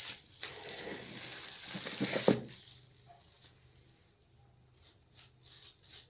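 Plastic bags rustling and crinkling as a cat pushes through them: a long burst of dense crinkling ending in a sharp crackle about two seconds in, then lighter scattered rustles and taps.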